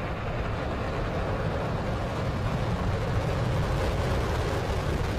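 Falcon 9's nine Merlin 1D first-stage engines at liftoff: a steady, deep rocket rumble that grows slightly louder as the rocket climbs.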